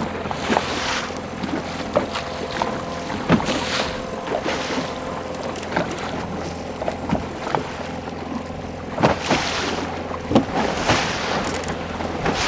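Outboard motor running steadily at trolling speed, a constant low hum, with several gusts of wind buffeting the microphone.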